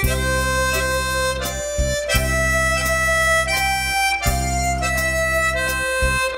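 Background music: a slow melody of long held notes that change every second or two over a sustained low accompaniment.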